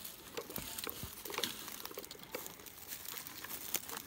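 Dry sticks and brushwood crackling and snapping as they are picked up and bundled by hand for firewood, in scattered, irregular clicks and crunches.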